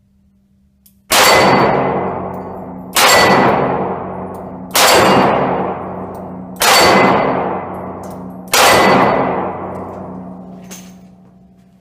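Five shots from a Smith & Wesson M&P 340 revolver about two seconds apart, each hit ringing a painted steel target with a loud clang that fades slowly over the next two seconds.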